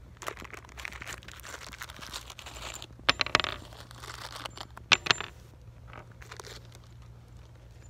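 A small plastic bag of screws crinkling as a gloved hand digs into it, then steel screws dropped with sharp clicks onto the plastic riser lid, about three seconds in and again about five seconds in.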